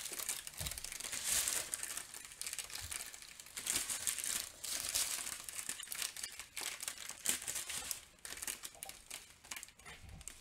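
Strips of small plastic bags full of diamond-painting drills crinkling as they are handled, in irregular bursts that grow fainter near the end.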